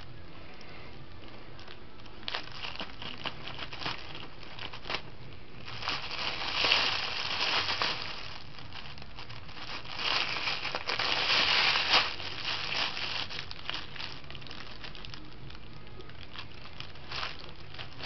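A small bag of valerian root crinkling and crackling as a kitten chews and paws at it, in irregular bursts, with two louder stretches partway through.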